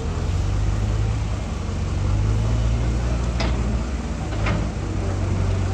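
Heavy diesel engine running steadily with a low hum, with two short sharp knocks about a second apart near the middle.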